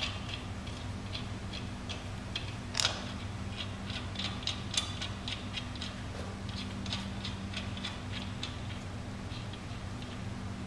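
Steel hex bolts being threaded by hand into a Griswold centrifugal pump's power frame: a run of light, irregular metallic clicks, with one louder click about three seconds in.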